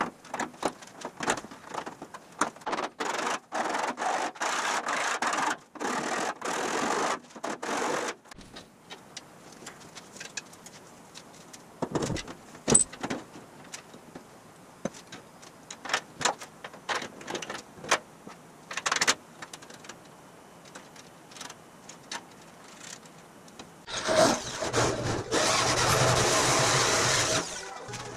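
A hand tool rasping in repeated strokes on the edge of a freshly cut hole in an aluminum body panel, followed by scattered light metal clicks and taps as an aluminum panel is fitted. Near the end comes about four seconds of loud, steady noise.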